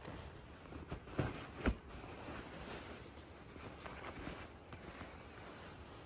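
A pet serval wrestling with a person's hand on carpet: rustling and scuffing of paws and fur against the carpet and skin, with two soft thumps about half a second apart.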